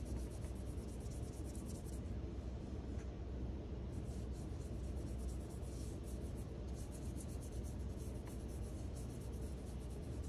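Watercolor paintbrush bristles rubbing across paper in spells of quick strokes with brief pauses, over a steady low hum.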